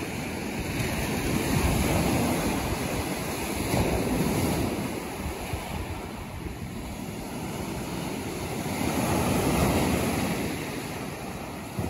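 Surf breaking and washing up the beach, swelling louder three times: a little under two seconds in, around four seconds, and near the end. Wind is on the microphone.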